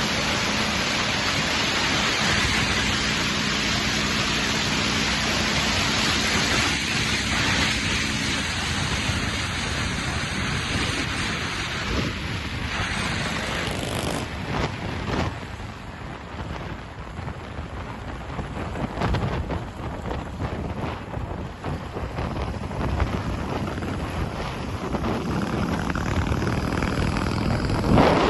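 Steady rushing wind noise on the microphone of a moving motorcycle, with the engine running faintly underneath. It drops and turns gusty and uneven about halfway through.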